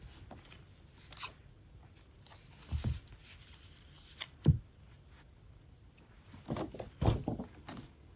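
Cardboard and paper packaging being handled during an unboxing: scattered light clicks and crinkles with soft knocks. The loudest knock comes about four and a half seconds in, and a cluster of knocks follows near the end.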